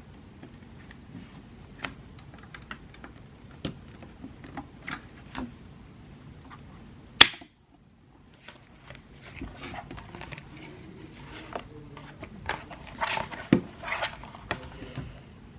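Small clicks, taps and rustling of stationery items being handled at close range, with one sharp, loud click about seven seconds in.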